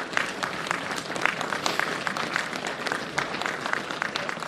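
Audience applauding: many hands clapping, with distinct separate claps.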